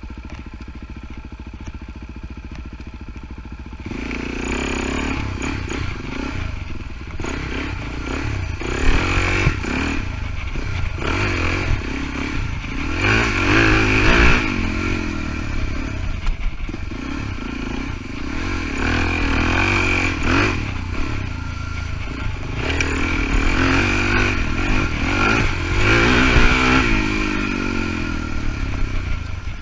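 Suzuki DR-Z400E's single-cylinder four-stroke engine heard from on board while riding a dirt trail. It runs quieter for the first four seconds, then gets louder and revs up and down repeatedly as the throttle is worked.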